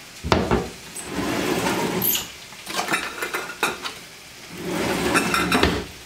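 Kitchen utensil drawer sliding on its runners twice, with metal utensils clinking and rattling in between as a wire whisk is taken out. A sharp knock sounds just as it starts.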